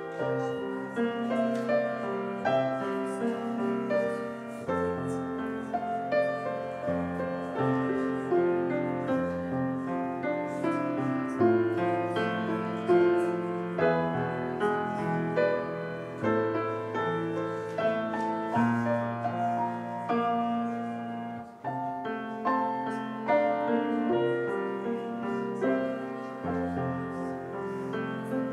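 Solo grand piano playing a service prelude: held chords under a melody, with a brief lull about twenty-one seconds in.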